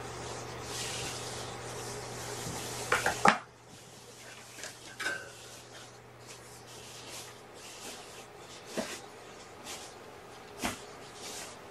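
Fabric rustling as a pop-up cat bed is handled and folded, with two sharp clacks about three seconds in, then a few scattered light clicks.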